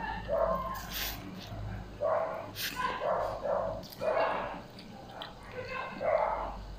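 Dog barking repeatedly in short calls, with a brief lull about five seconds in.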